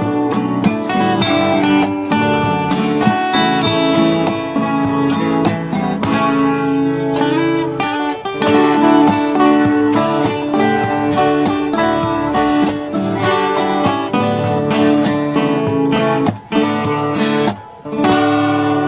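Music led by strummed acoustic guitar, steady and full, with two short breaks near the end.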